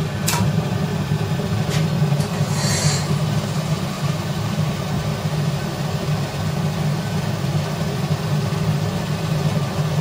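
Gas-fired glory hole (reheating furnace) of a glass studio, its burner and blower running with a steady low rumble while a gather on a blowpipe is heated in its port. There are a couple of faint clicks near the start and a short hiss about two and a half seconds in.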